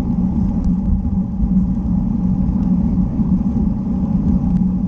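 Steady low wind rumble on a bike-mounted camera's microphone while riding, mixed with tyre noise on asphalt.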